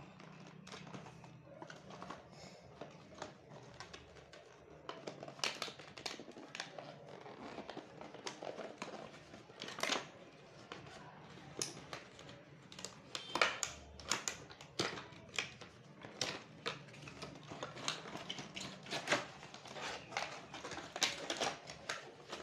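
Cardboard trimmer box being opened and its plastic tray slid out: irregular rustling, scraping and sharp clicks of paperboard and plastic packaging, with a few louder snaps now and then.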